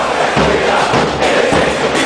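Large stadium crowd of Argentine football supporters chanting in unison, loud and continuous, with low drum thumps beating underneath.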